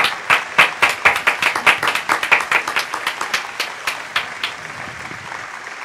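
Applause: hand clapping at about four distinct claps a second, loudest over the first few seconds and dying away about four and a half seconds in.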